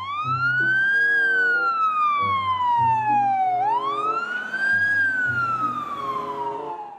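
Wailing fire-engine siren, rising quickly then falling slowly through two full cycles, over faint stepped background notes.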